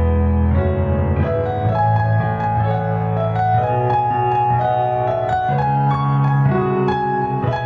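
Background piano music, held notes over a low bass line that changes every second or so.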